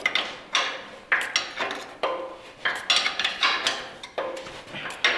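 Steel wrench clinking and clanking against the nut and bolt of a truck trailer's turntable, sharp metallic knocks about twice a second with short ringing tails. The bolt being worked on has just had its thread strip under the wrench.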